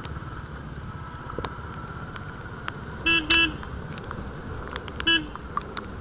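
Steady low rumble of a motorcycle ride with road and wind noise, broken by a vehicle horn: a quick double honk about three seconds in and a single short honk near the end. Scattered sharp ticks of raindrops hitting the camera run through it.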